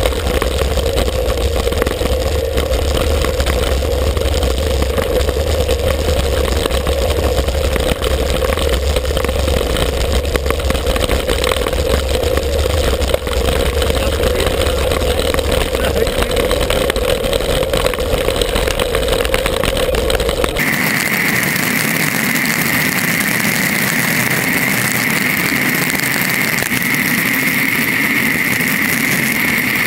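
Wind noise and tyre rumble on a bicycle's handlebar-mounted action camera during a fast road descent, a steady deep rush. About two-thirds through the sound changes abruptly: the deep rumble drops away, leaving a higher, thinner hiss.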